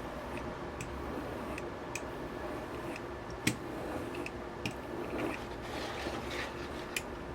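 Soft rubbing and scraping on a wood-backed leather strop charged with honing compound, with a few light clicks, the sharpest about three and a half seconds in.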